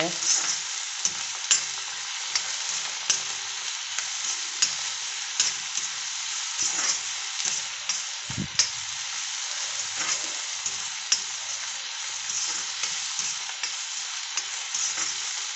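Chopped onions and tomato sizzling in hot oil in an iron kadai, with a steady hiss. A metal spatula scrapes and clicks against the pan as they are stirred, roughly once a second, with one duller knock about eight seconds in.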